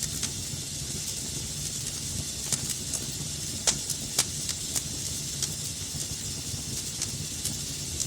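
Wood fire burning in a fireplace: a steady hiss and low rumble with scattered sharp crackles and pops, the loudest two a little under four seconds in and about half a second later.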